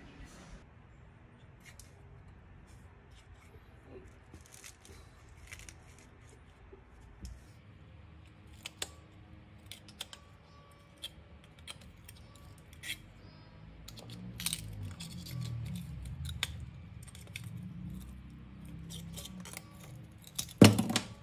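Pliers gripping and bending the thin metal ferrule of a paintbrush: scattered small metallic clicks and scrapes, with one loud sharp clack near the end.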